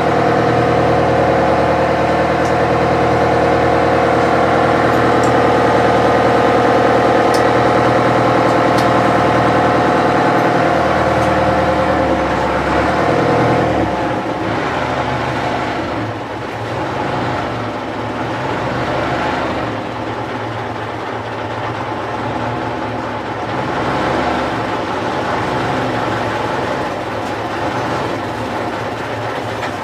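Boat engine running steadily, then dropping in loudness about twelve to fourteen seconds in and running less evenly after that.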